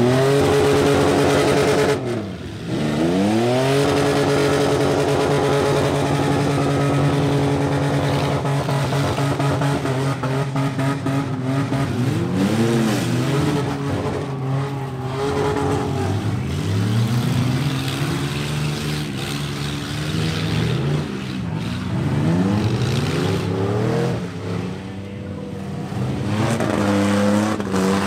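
Demolition-derby pickup trucks' engines revving hard. One climbs to high revs in the first second and holds there, dips briefly about two seconds in and climbs again, and in the second half several engines rise and fall over one another.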